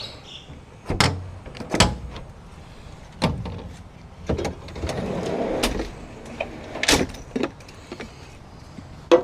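Knocks and clunks of a portable camping fridge being handled and pulled out, with a rubbing, sliding noise for about a second and a half in the middle. The loudest knock comes about seven seconds in.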